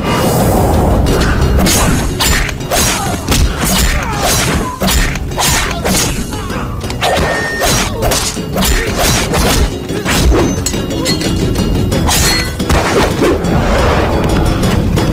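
Action-film fight soundtrack: a loud background score under rapid, repeated punch and hit sound effects with crashing impacts.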